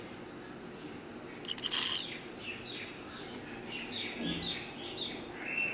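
Birds chirping: a quick run of short, high chirps that starts about a second and a half in and goes on to the end, over a faint steady background hum.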